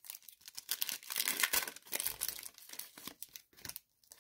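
Foil wrapper of a Pokémon TCG Unbroken Bonds booster pack crinkling and tearing as hands pull it open, densest in the first two seconds and thinning out near the end.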